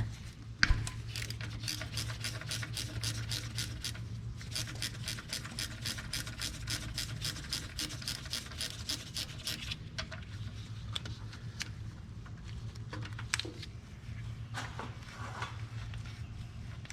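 Ratchet wrench clicking in quick, even strokes, about four to five clicks a second, while a 10 mm nut on the starter solenoid's signal-wire terminal is backed off. The clicking runs for about nine seconds, then gives way to a few scattered clicks and knocks.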